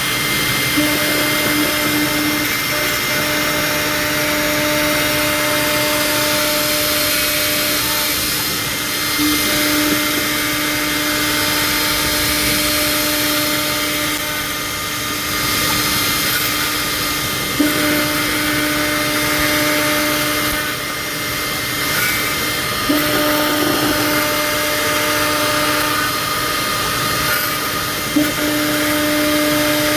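CNC milling machine cutting plastic: a steady hiss of the running spindle, with a humming tone that sets in and breaks off about five times, each onset marked by a small knock.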